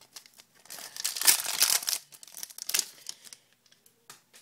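Hockey card pack wrapper being torn open and crinkled, loudest for about a second near the start, then a shorter crinkle and a few light clicks.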